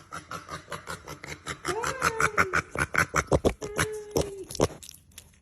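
An animal's rapid clicking or chattering, about seven clicks a second and louder from about two seconds in. A rising-and-falling call comes about two seconds in, and a shorter held call near four seconds.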